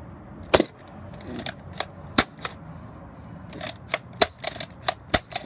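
Plastic Nerf Rebelle blaster clicking as it is handled, loaded and primed: a sharp click about half a second in, a few scattered clicks, then a quick run of clicks, about three or four a second, near the end.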